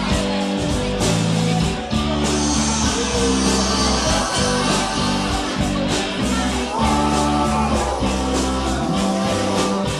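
Live rock band playing between vocal lines, with guitar to the fore over bass and a steady drum beat.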